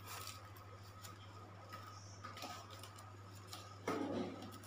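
Faint clicks and rustles of hands handling a styrofoam cooler box packed with ice, with a louder half-second rub about four seconds in, over a low steady hum.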